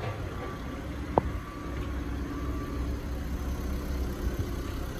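A car engine idling steadily with a low rumble. There is one short click about a second in.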